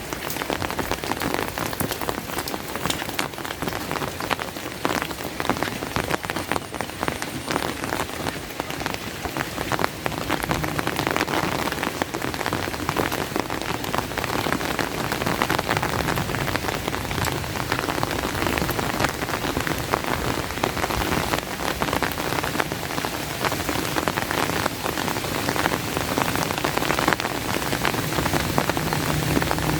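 Steady rain falling, a dense patter of many small drops. A low rumble builds near the end.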